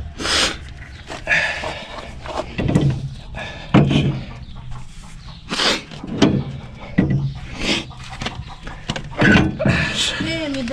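Irregular metal knocks and clanks, a dozen or so, from working a tractor's PTO driveshaft loose by hand.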